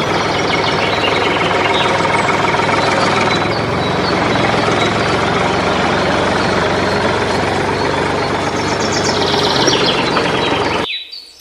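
Small engine running steadily with a dense rattling clatter, cutting off abruptly near the end.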